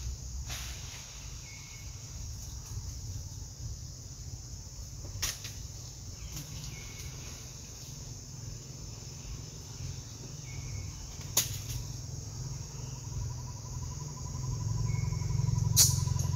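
Outdoor ambience: a steady high hiss of insects over a low rumble, which grows louder near the end. A faint short chirp comes every few seconds, and there are four sharp clicks.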